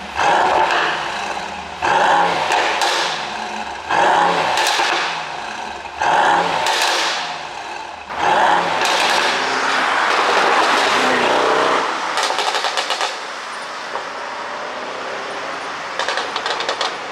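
Mercedes-AMG GT63 S twin-turbo V8 exhaust, blipped five times about two seconds apart and then held at higher revs for a few seconds. Each lift-off ends in rapid crackles and pops, set up by an ECU tune that makes it pop on the overrun.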